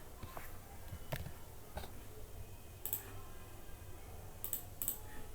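Computer mouse clicking: a few scattered sharp clicks, some in quick pairs, over a faint low hum.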